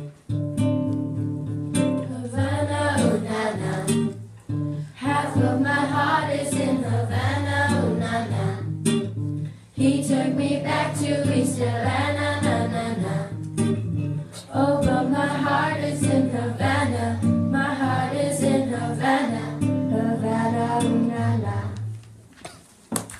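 Acoustic guitar strummed as accompaniment while girls sing a pop song into a microphone. The music dies away near the end.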